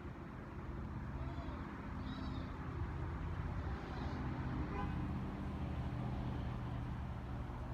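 Steady low hum of idling vehicle engines and road traffic, with a few faint high chirps about one and two seconds in.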